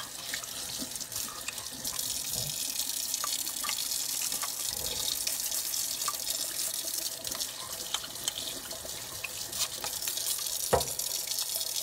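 Kitchen tap running steadily into a stainless steel sink, with light clicks and knocks as parts are handled under the stream, and one sharper knock near the end.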